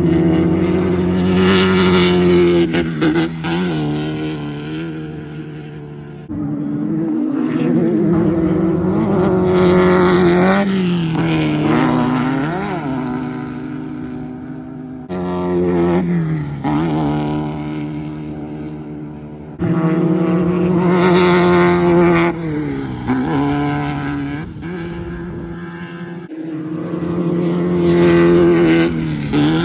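Class 1600 off-road race cars with air-cooled VW 1600 cc engines running hard past the microphone, engine pitch rising and falling as they rev and pass. Several separate passes follow one another, each starting or stopping abruptly.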